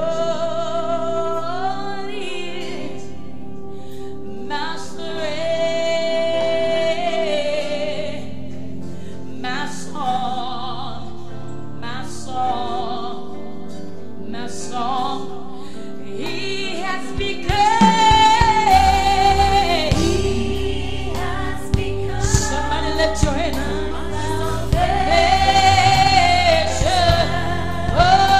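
A woman singing a slow gospel worship song into a microphone, holding long notes with vibrato over a sustained accompaniment. About two-thirds of the way through, bass and a beat come in and the music gets louder.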